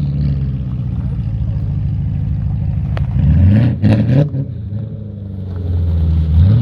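Car engine idling, then revved briefly about three and a half seconds in, the pitch rising and falling back. It starts to rev up again near the end.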